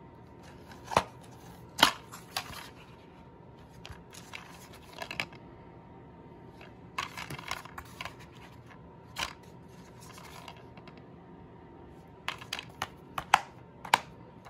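Plastic DVD keep case being handled, opened and shut, giving a series of sharp plastic clicks and snaps with the loudest near the end.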